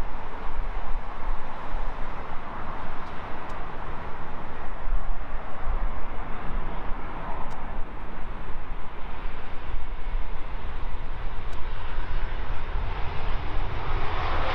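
Boeing 787 Dreamliner's jet engines as the airliner lands and rolls out on the runway: a steady rushing roar that grows louder near the end.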